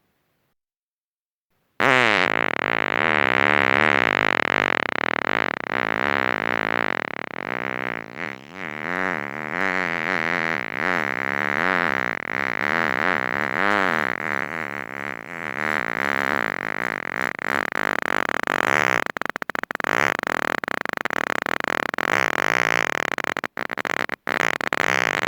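Human flatulence: farting starts about two seconds in and runs almost without a break to the end, its pitch wobbling up and down throughout.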